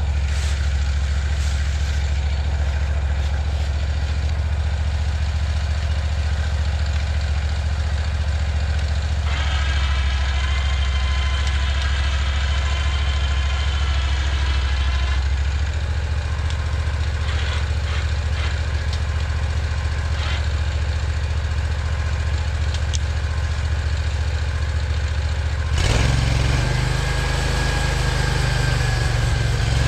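Portable bandsaw sawmill's gasoline engine idling steadily, then speeding up to a higher note near the end.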